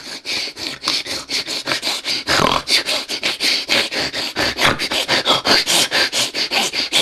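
A man making rapid, rhythmic breathy hissing sounds with his mouth close to the microphone, about six short puffs a second.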